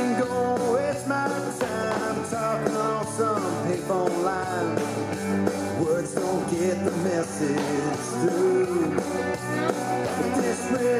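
Country-rock song playing, with a singing voice over guitar and a steady beat.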